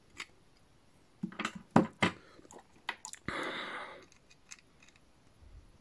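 Hard plastic parts of a toy robot figure and its upgrade kit being handled and forced together: a run of sharp clicks and snaps, the loudest just under two seconds in, then a short scraping rub a little past three seconds in.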